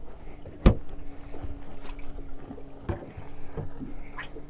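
A boat's motor hums at a steady pitch, dropping slightly in pitch after a sharp knock on the boat about half a second in. A few lighter knocks follow, with some wind on the microphone.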